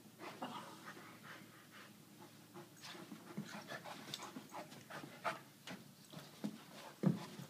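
Irish Wolfhound and Aussiedoodle puppy play-wrestling on a carpet: quick, irregular panting breaths and mouthing noises from the dogs. A short low thump near the end is the loudest sound.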